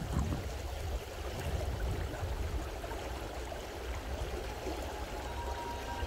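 Stream water flowing, a steady even rush of water noise, with a low rumble underneath.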